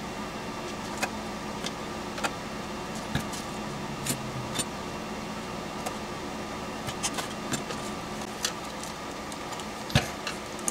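Scattered small metallic clicks and taps of a screwdriver and screws working on a thin aluminium project box, with a louder knock near the end, over a steady low hum.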